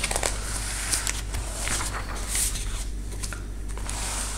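Paper rustling and brushing as sketchbook pages are handled and turned, in a few irregular scratchy bursts, over a steady low hum.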